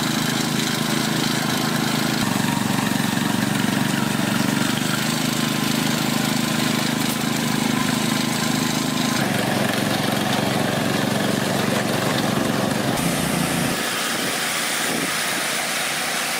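Construction machinery engine running steadily with a low hum. The sound changes abruptly about nine seconds in and again near fourteen seconds, where the low hum drops away.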